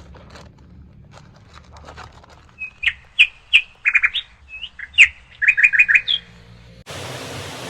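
A bird chirping: a run of short, sharp chirps in quick clusters. Near the end a steady rushing noise starts abruptly.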